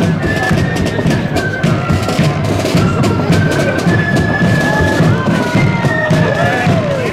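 Marching flute band playing a tune: flutes hold high notes that step up and down, over a steady beat of side drums and bass drum.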